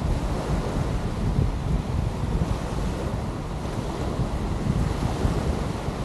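Wind buffeting the microphone in a steady low rumble over the wash of surf on the beach.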